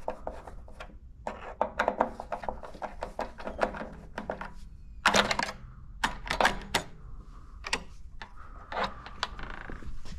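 Rapid clicks, taps and rustling of hands handling tools, wires and meter leads at an electric water heater's element terminals, with two louder scraping rustles about five and six and a half seconds in.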